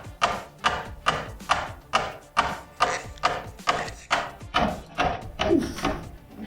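Hand saw cutting through electrical conduit in steady back-and-forth strokes, about two a second, each stroke a short rasp.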